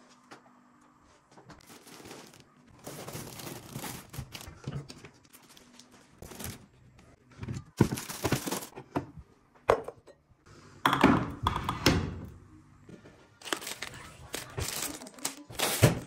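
Plastic grocery packaging rustling and crinkling in bursts, with a few sharp thunks of items and cupboard parts being knocked or set down.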